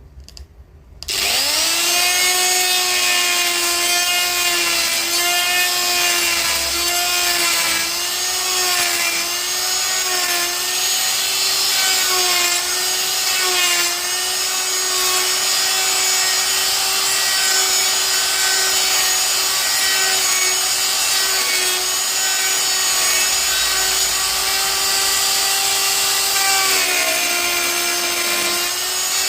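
Milwaukee M12 cordless die grinder starting about a second in and running with a steady high whine, its pitch dipping and wavering as the bit bites into black walnut wood. The pitch drops a little near the end.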